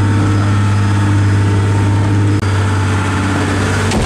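Motorboat engine running steadily under way, a loud, even low hum heard from inside the boat's cabin, with a momentary break about two and a half seconds in.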